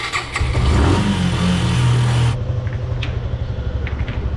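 Motorcycle engine starting: it catches with a sudden burst, revs up in the first second, then settles into a steady idle. A hiss over it cuts off abruptly about two seconds in.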